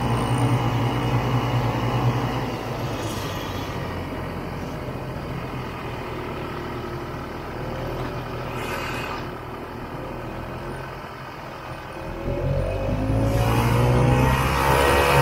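1967 Ski-Doo Olympic snowmobile's two-stroke engine running while riding, easing off about two seconds in, then rising in pitch and loudness over the last few seconds as it accelerates.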